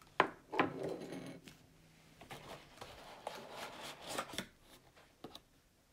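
Cardboard lamp box being handled and unpacked by hand: irregular rustling and scraping of the flaps and packing, with small clicks and two sharp knocks in the first second.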